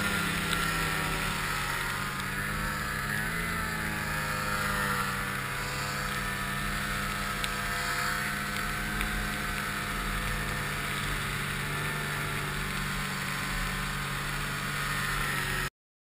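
2008 Ski-Doo REV XP snowmobile's two-stroke engine running under way through deep powder, holding a fairly steady pitch that briefly rises and falls about three seconds in. The sound cuts off abruptly near the end.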